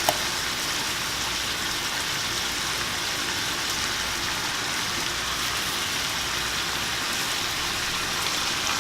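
Shrimp frying in a pan, a steady sizzling hiss, with one short knock right at the start.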